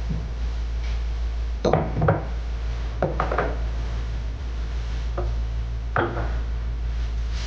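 A few short knocks and clatters, two close together about two seconds in and others scattered later, over a steady low hum.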